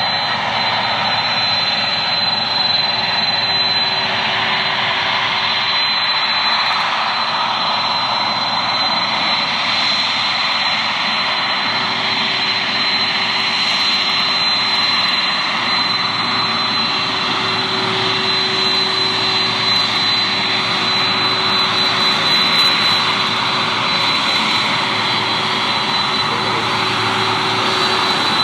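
Airliner jet engines running: a steady, loud rush of noise with a thin high-pitched whine held throughout.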